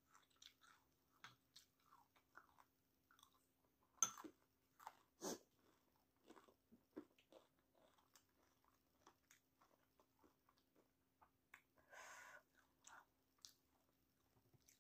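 Faint close-up chewing of kwek-kwek, battered deep-fried quail eggs: small wet mouth clicks and soft crunches of the batter, two of them louder about four and five seconds in. A brief soft hiss comes near the end.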